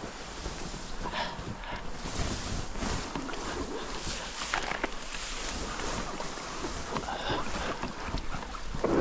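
Water splashing and sloshing around a small boat moving down a creek, with scattered short splashes and wind buffeting the microphone.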